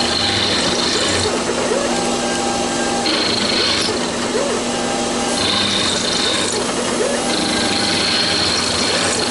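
Taig CNC mill's end mill cutting cast iron, with the spindle and machine running steadily under an air jet's hiss that blows the chips away. A higher, scraping cutting tone comes and goes every second or two as the cutter moves around the profile.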